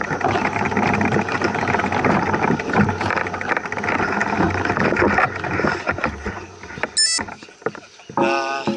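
Mountain bike rolling fast over a rough trail, a steady clatter of rattles and knocks mixed with wind noise, dying away about six seconds in. A brief high squeal follows about seven seconds in.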